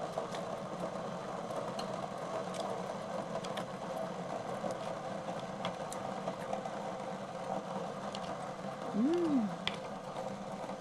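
Eating at a hot pot table: small scattered clicks of chopsticks and mouth sounds over a steady low hum. About nine seconds in comes a short hummed 'mm' that rises and falls.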